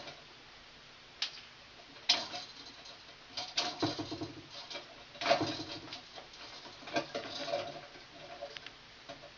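Hand tools working electrical wire at a switch: irregular clicks, snips and scraping, with the sharpest snaps about two, five and seven seconds in.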